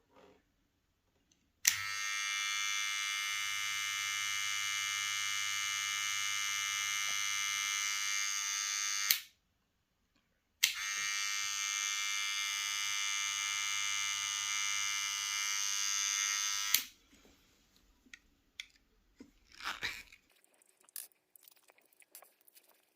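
VGR V905 cordless hair trimmer running unloaded with a steady high buzz for about seven seconds, switched off, then run again for about six seconds. A sharp click of the switch marks each start and stop, and a few light handling clicks follow.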